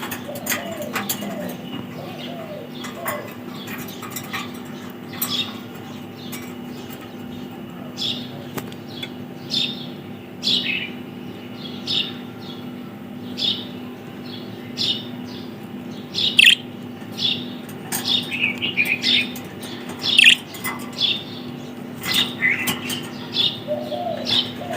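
Pet budgerigars chirping: short, high, falling chirps every second or two, coming thicker and faster in the second half, over a steady low hum.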